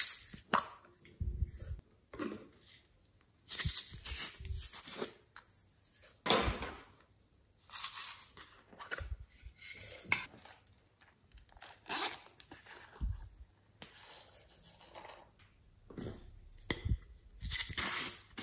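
Hands handling small plastic containers, a plastic egg capsule and a pineapple-shaped plastic jar: irregular rustling and scraping of plastic with occasional sharp clicks, in short bursts with quiet gaps between them.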